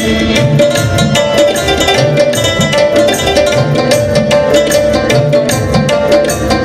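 Instrumental break in an Afghan song: an electronic keyboard plays a quick plucked-string-style melody over a steady hand-drum rhythm, with held harmonium tones underneath.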